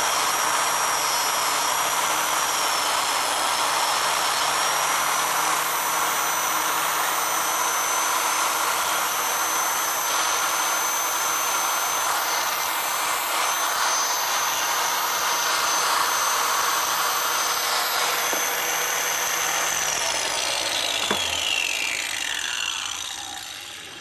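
Electric angle grinder running steadily with a high whine, its disc grinding the edge of a polyurethane horseshoe to trim its outline to just outside the marked line. About twenty seconds in it is switched off, and the whine falls away as the disc spins down.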